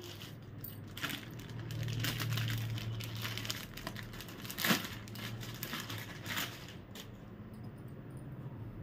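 Clear plastic packet crinkling and cloth rustling as a folded dupatta is pulled out and unfolded, in irregular rustles with one louder crackle about halfway through.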